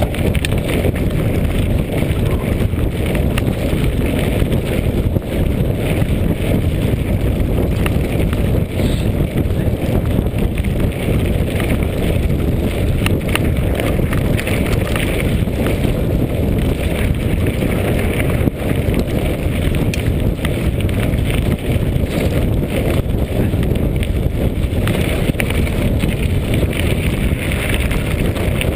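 Mountain bike riding over a rocky gravel track, with steady wind rumble on the camera microphone, tyre crunch and many small rattles and knocks from the bike.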